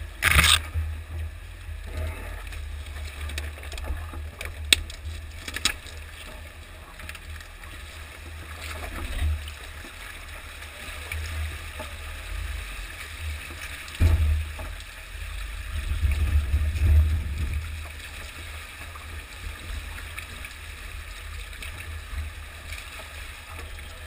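Jeep Wrangler JK crawling off-road, heard from close to its front wheel, with a low rumble throughout. Early on there are sharp knocks and scrapes as it pushes through brush and branches. From about nine seconds in, water splashes and rushes around the tire as it fords a rocky creek, with heavier surges of splashing in the middle.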